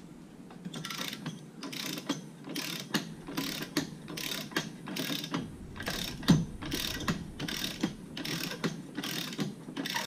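Torque wrench with a socket ratcheting in short back-and-forth strokes, a burst of pawl clicks about two to three times a second, as it runs a nylock propeller nut down on an outboard's prop shaft.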